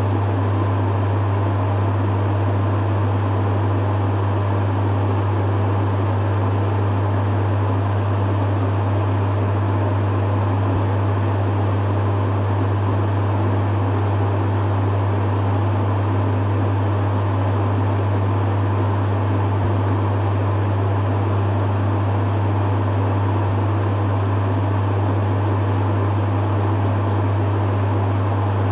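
Dehumidifier running steadily: a strong, constant low hum under an even rush of fan air.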